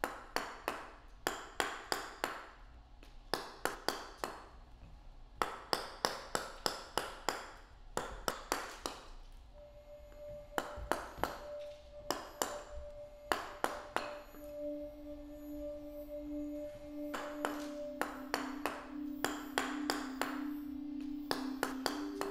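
Runs of sharp taps from a wood-carving chisel cutting into wood, over a soundtrack of held musical tones: a high tone enters about ten seconds in, and lower tones join from about fourteen seconds.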